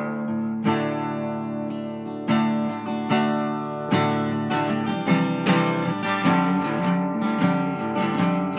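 Background music of acoustic guitar, with plucked and strummed notes.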